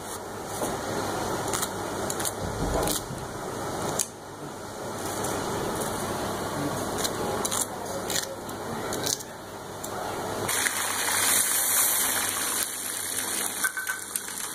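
A knife clicking and clinking against a steel bowl, with rustling, as green chillies are sliced over it. About ten seconds in, the clinks give way to a steady hiss.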